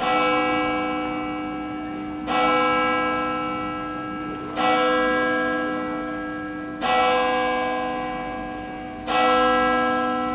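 A bell tolling slowly: five strokes about two and a quarter seconds apart, each ringing on and fading until the next.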